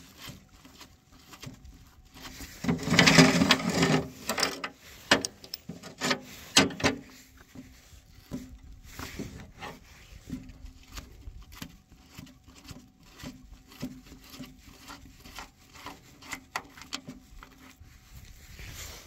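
Small metallic clicks, ticks and scrapes as loose steel bolts are unscrewed by hand from an excavator's hydraulic tank cover and tools are handled, with a louder stretch of rubbing and clatter about three seconds in and a few sharper knocks shortly after.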